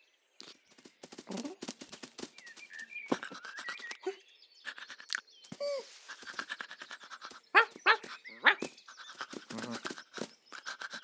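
Cartoon cat and dog vocal sound effects: quick licking and panting sounds, with two loud, sharp yaps in the second half.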